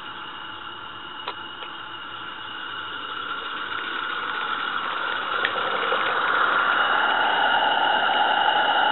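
16mm-scale live steam garden-railway locomotive running with a snowplough, a steady hiss that grows louder as it approaches, with a couple of faint sharp clicks.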